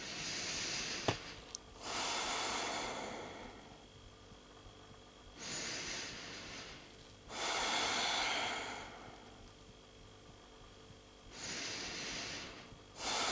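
A woman taking three slow, deep breaths, each an audible inhale followed by an exhale, with short pauses between the breaths.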